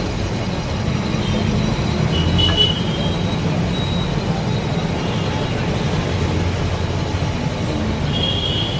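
A cylinder boring machine runs with a steady low hum, with brief high-pitched whines now and then as it rebores an air compressor cylinder.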